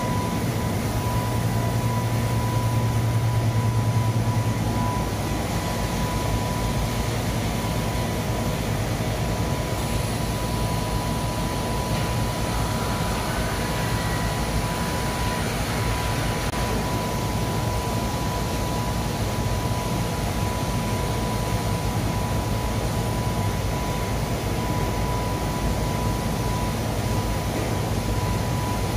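Industrial front-loading washing machine running: a steady low machine hum under an even noise, with a thin steady high tone above it.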